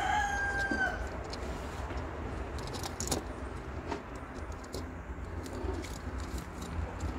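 A rooster crowing in the background, its drawn-out call ending about a second in. After it comes a low steady rumble with a few faint clicks from hands working thin electrical wire.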